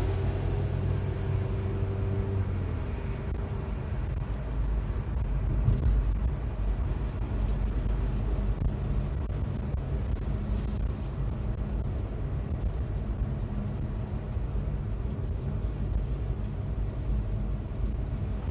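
Steady low rumble of a car driving slowly through city streets, heard from inside: engine hum and tyre noise on asphalt. A humming engine tone eases off about three seconds in.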